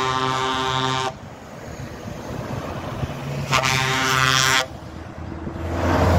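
Truck air horn sounding two long, steady blasts, each about a second long, the second coming about two and a half seconds after the first. Near the end a truck's diesel engine grows louder as it passes close by.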